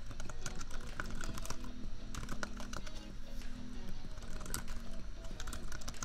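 Computer keyboard typing in irregular bursts of key clicks with short pauses between them, over lofi background music and a constant low laptop fan hum.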